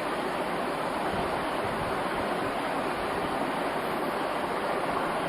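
Steady, even rushing noise of a running fan.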